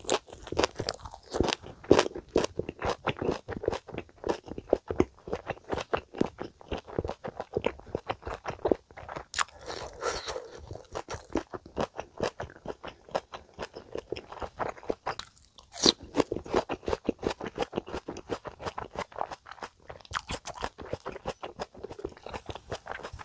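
Close-miked chewing of a big mouthful of leafy ssam wrap with spicy stir-fried chicken: steady, irregular crunches of the greens and wet mouth clicks, with a brief lull about two-thirds through.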